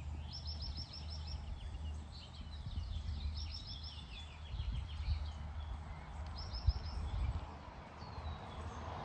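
Small birds chirping in quick runs of short, high, repeated notes, several runs in a row, over a steady low background rumble.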